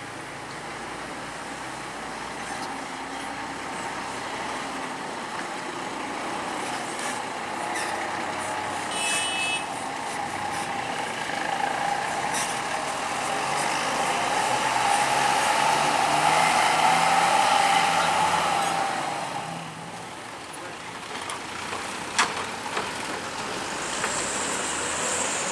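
A large bus passing close by: its engine and road noise build steadily to a peak about fifteen to eighteen seconds in, then fall away quickly. A short high beep sounds about nine seconds in, a sharp click later, and a hiss near the end.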